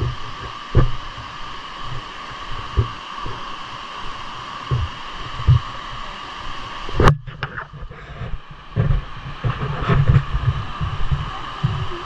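Footsteps on a rocky dirt trail, heard as irregular low thuds through a handheld camera's microphone, over the steady rush of a nearby stream. A single sharp click about seven seconds in.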